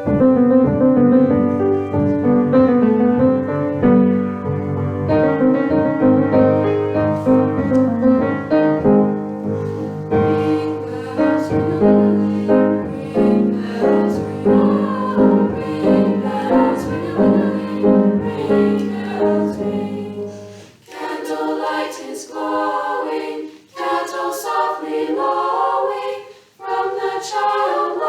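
Women's choir singing a Christmas carol in harmony over instrumental accompaniment; about three quarters of the way through the accompaniment drops out and the voices carry on a cappella.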